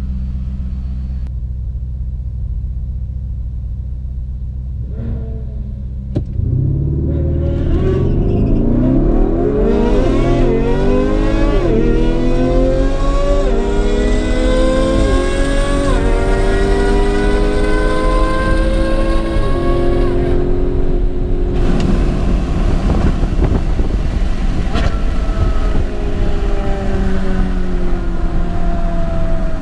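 Lamborghini Urus twin-turbo V8 heard from inside the cabin. It idles at the start line, then about six seconds in it launches on a quarter-mile drag run and pulls up through the gears, the pitch climbing and dropping back at each quick upshift. After about twenty seconds it eases off and settles to a steady, lower drone.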